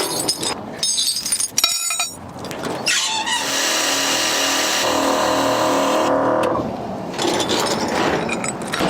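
A few clinks and knocks, then a motor running at a steady pitch for about three seconds.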